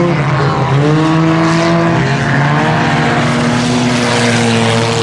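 Several IMCA Sport Compact four-cylinder race cars running at speed around the track, their engine notes overlapping in a steady drone that rises and falls slightly as they accelerate and lift.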